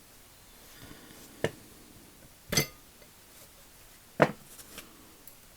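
Small steel ratchet parts clinking against each other and the ratchet head during reassembly: three sharp metallic clinks a second or so apart, followed by a few lighter taps.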